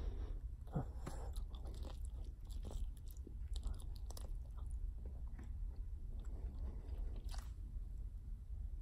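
Bubble gum mouth sounds: a large bubble bursting about a second in, then a run of sticky clicks and smacks at the lips as the deflated gum is gathered back into the mouth, with another sharp smack near the end.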